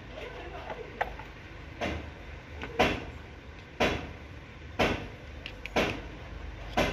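Evenly paced knocks, about one a second, from tapping the new fuel pump drive seal into the timing cover of an Isuzu 4JA1 diesel engine.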